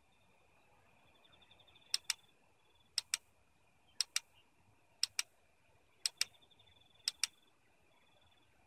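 Hasselblad H5D-200c medium-format camera firing a six-shot multi-shot sequence: six pairs of crisp shutter clicks, evenly spaced about a second apart. Each pair is the shutter opening and closing for a tenth-of-a-second exposure.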